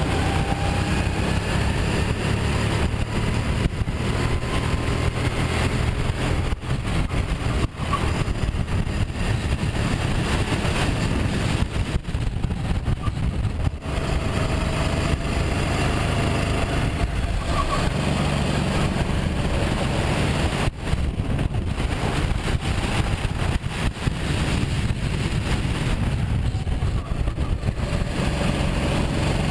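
Sodi RT8 rental kart's single-cylinder four-stroke engine heard from the driver's seat at racing speed, its pitch rising and falling as the kart accelerates along the straights and lifts for the corners, under a steady rush of wind noise.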